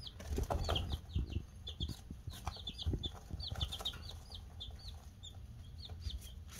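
Baby Polish chicks peeping: a steady stream of short, high peeps, several a second, over a low rumble.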